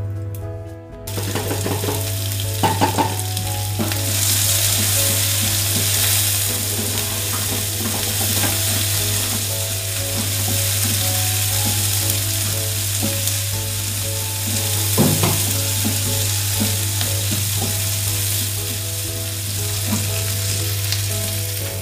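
Chopped onions sizzling in hot oil in a nonstick frying pan, frying for a dal tadka and stirred with a wooden spatula. The sizzle starts about a second in as the onions go in and grows fuller a few seconds later, with a couple of knocks of the spatula on the pan.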